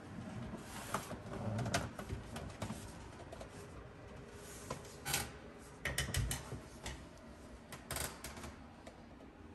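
Footsteps and small handling clicks from someone walking through a hallway and onto stairs: a few soft thumps and scattered sharp clicks, fairly quiet, bunched about a second in and again from about five to eight seconds in.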